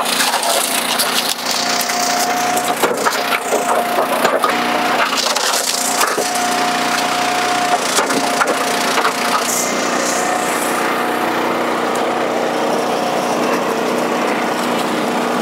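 Northern red oak being forced through the seven-way box wedge of an Eastonmade 12-22 log splitter: the wood cracks and splinters over the splitter's steady engine. The cracking dies away about ten seconds in, and the engine keeps running.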